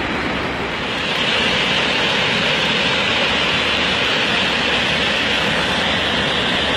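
Steady rushing of a swollen, muddy flood river carrying stones and silt, stepping up in loudness about a second in.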